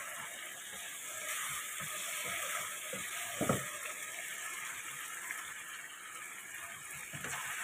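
Chicken pieces sizzling steadily in hot oil in a karahi, with a short knock of the wooden spatula against the pan about three and a half seconds in.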